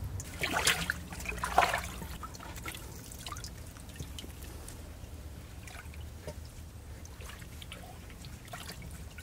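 Muddy water in a trap hole splashing twice, about half a second and a second and a half in, as a fish moves through it, then scattered small drips and trickles.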